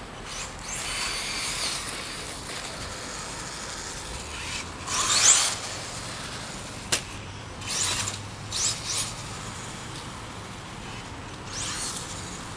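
Brushless electric motor of a 1/16-scale Traxxas RC car whining in several short bursts that rise in pitch as it accelerates, the loudest about halfway through, with a single sharp click in between.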